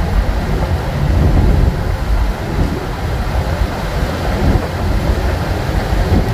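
Steady low rumble of a third-generation Chevrolet Camaro cruising at highway speed, heard from inside the car: road, wind and engine noise with no distinct events.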